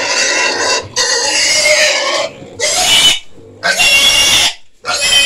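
A piglet squealing in distress as it is caught and held up by hand: four or five long, loud, high squeals with short breaks between them.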